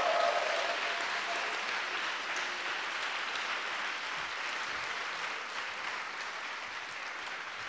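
Audience applause answering a call to make some noise, loudest at first and slowly dying away.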